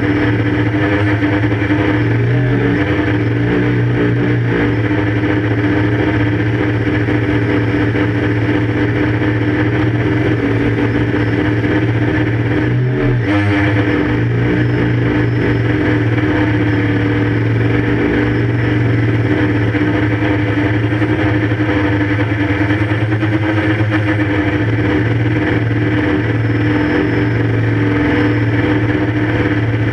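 QAV 500 quadcopter's electric motors and propellers humming steadily, with a brief wavering in pitch about halfway through.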